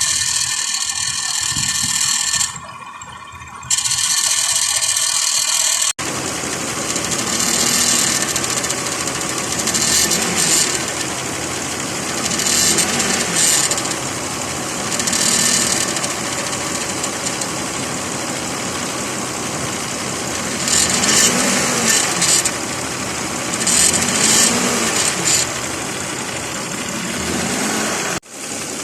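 The 3.3-litre 3MZ-FE V6 of a 2006 Lexus ES 330 running, with a high metal-on-metal grinding that comes and goes. The noise comes from the alternator's upper bracket bolt: it is the wrong size and not screwed all the way in.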